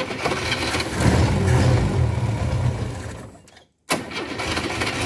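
1971 Ford Corcel's four-cylinder engine being cranked by the starter in two tries, the first cut off abruptly about three and a half seconds in and the second starting a moment later. The engine is not catching, a sign of fuel not reaching it.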